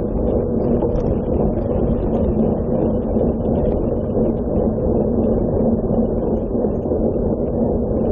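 Steady, loud rush of wind on the bike-mounted camera's microphone together with cyclocross tyres rolling fast over gravel, with a steady low hum underneath.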